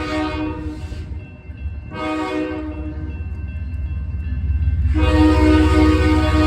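Diesel freight locomotive's air horn sounding in long blasts: it breaks off about a second in, resumes, and comes back loud about five seconds in. Under it the locomotive's low engine rumble grows louder as it comes closer.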